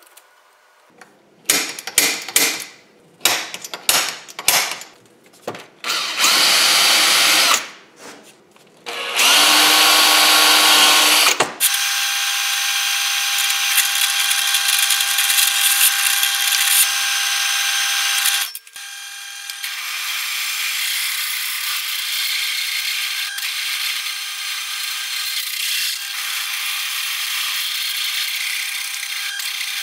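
Pillar drill press drilling an 8 mm steel plate: a steady running noise with a steady whine from about twelve seconds in, dipping briefly around two-thirds of the way through. Before it come a run of sharp knocks and two short bursts of loud noise.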